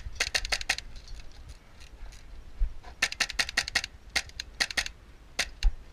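Airsoft guns firing short full-auto bursts, about a dozen shots a second: one burst just after the start, another about three seconds in, a shorter one near five seconds, and a single shot near the end.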